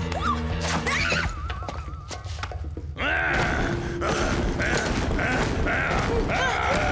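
Cartoon sound effects over dramatic music: a high, wavering, trembling cry, then a sudden loud burst about three seconds in and a snarling growl from a hypnotized caveman-like creature bursting through a stone wall.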